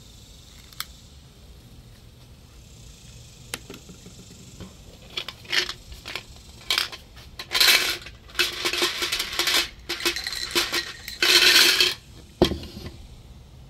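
A couple of sharp clicks near the start, then from about five seconds in, repeated clinking and rattling of glass, with longer loud rattles around eight and eleven seconds.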